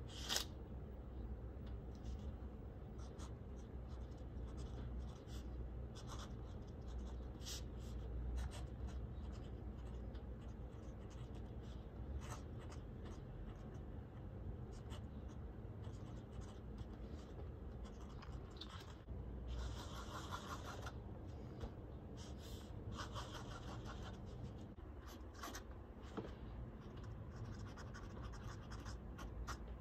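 Fine steel nib of a Lamy AL-Star fountain pen scratching lightly over paper as words and wavy lines are written, in short strokes with small ticks between them. A single sharp click comes right at the start, and there are two longer, denser runs of scratching a little past the middle.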